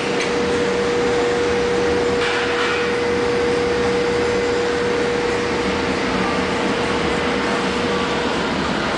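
Middleby Marshall PS360 conveyor pizza oven running at 480 degrees: a steady rushing noise from its blower fan, with a constant mid-pitched hum throughout.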